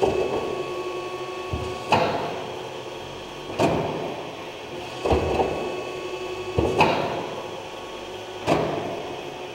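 Ruffinatti IM70 confectionery kneader running empty, its blades turning in the bowl with a steady mechanical hum. A clunk comes about every one and a half to two seconds, each followed by a fading rumble.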